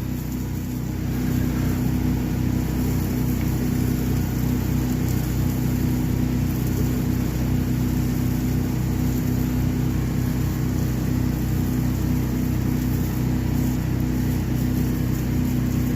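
An 8 GPM pressure washer's engine running steadily under load, with the hiss of water spraying from a shooter tip.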